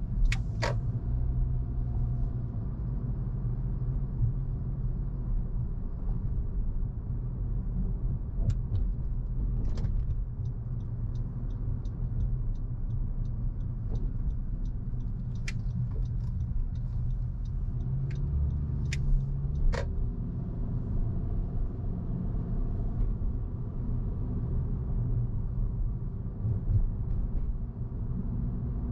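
A car being driven, with a steady low rumble of engine and road noise. A few sharp clicks or knocks break in here and there, and a faint, evenly spaced ticking runs for several seconds midway.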